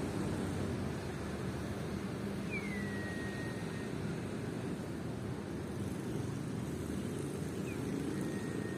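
Steady low rumble with two faint whistled bird notes over it. The first comes about two and a half seconds in, falling in pitch and then holding for about a second. The second is a shorter held note near the end.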